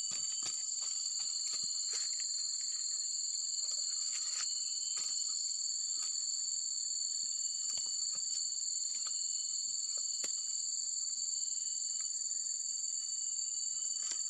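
Steady, high-pitched chorus of insects droning on two even pitches, with scattered light clicks and taps over it, most of them in the first few seconds.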